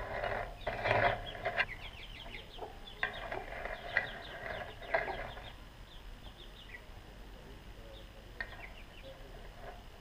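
Chickens clucking: a run of short repeated calls, loudest about a second in and dying away after about six seconds, with a single sharp click near the end.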